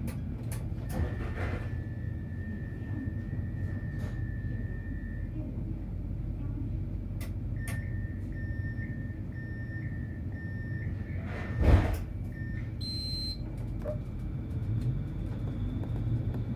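Steady low rumble inside a tram with an electronic tone, then a run of short beeps, typical of a door warning signal. One loud thud comes about twelve seconds in, like the sliding doors closing.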